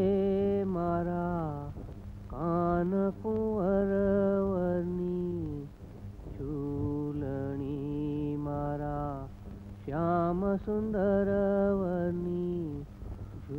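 Background music: a solo voice singing a slow, chant-like melody in long held notes that step up and down in pitch, over a low steady drone.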